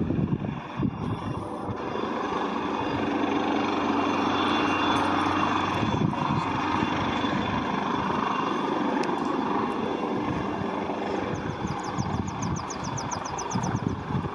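HM Coastguard search-and-rescue helicopter flying overhead, its rotors and engines giving a steady drone.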